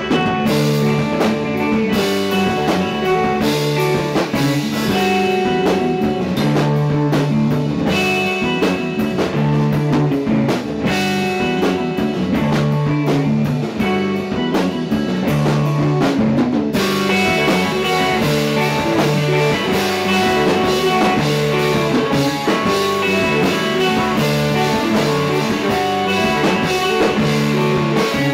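Live rock band playing: electric guitars over a drum kit, with a low note figure repeating about every two seconds. About two-thirds of the way in, the sound gets brighter and fuller.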